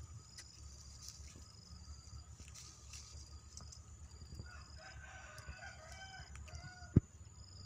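A rooster crowing once, a wavering call of about two seconds starting some four and a half seconds in, followed by a single sharp click near the end.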